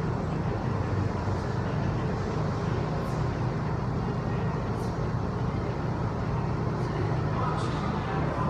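Steady low rumbling background noise with no clear rhythm, and a few faint ticks.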